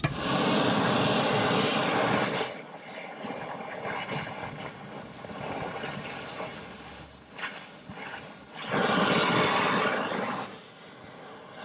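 A power tool running steadily in two bursts, the first about two and a half seconds long and the second about two seconds, near the end, with quieter noise between them. The tool is working on a seized bearing that would not budge.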